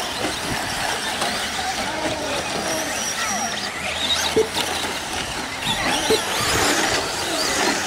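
Several electric 2WD short-course RC trucks racing, their motors whining and sliding up and down in pitch as they accelerate and brake, with a couple of short knocks around the middle.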